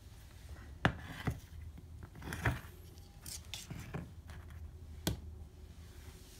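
Stainless steel cat food bowls handled and set down on the floor: a few sharp clicks and knocks spread over several seconds, the loudest about a second in, over a low room hum.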